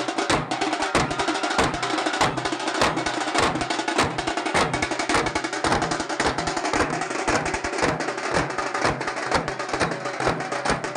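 Group of dollu, the large barrel drums of Karnataka's Dollu Kunitha, beaten together with sticks in a fast, steady rhythm.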